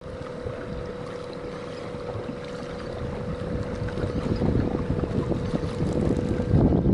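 Wind buffeting the microphone, growing stronger and gustier in the second half, over a steady low hum.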